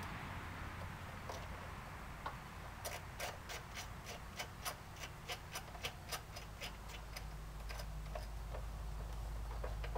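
Ratchet wrench clicking in a quick run of about fifteen ticks, roughly four a second, with a few single ticks before and after, as the loose 10 mm timing-cover bolts of a Ford 2.3L engine are spun out.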